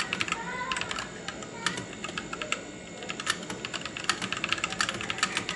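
Typing on a Rakk Lam Ang Pro mechanical keyboard fitted with Glorious Holy Panda tactile switches: a quick, irregular run of key clicks, several a second, as a sound test.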